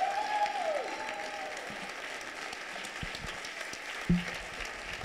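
Audience applauding steadily, with a couple of falling tones in the first second and a brief thump about four seconds in.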